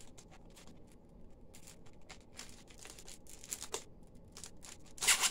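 Die-set packaging being opened: a plastic sleeve and kraft card sleeve rustling and crinkling in quiet, scattered handling noises and small clicks, with a louder crinkle about five seconds in.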